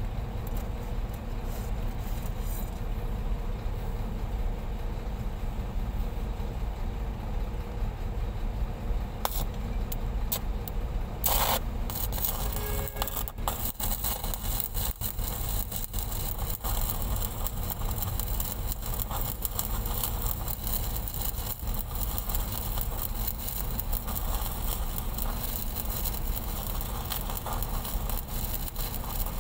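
Stick (shielded metal arc) welding on a 630 mm steel pipe joint: after a few sharp clicks as the electrode is struck, about nine to eleven seconds in, the arc crackles and sizzles steadily from about twelve seconds on. A steady low machine hum runs underneath throughout.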